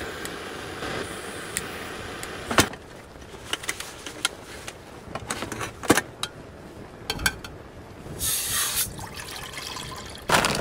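Canister gas camping stove lit with a click and a steady hiss of burning gas, then aluminium camping pots knocking and clinking as the nested cook set is taken apart. Near the end, water is poured from a bottle into the pot.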